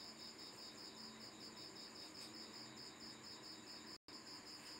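Near-silent room tone with a faint cricket trill, a high note pulsing evenly several times a second. The sound cuts out for an instant near the end.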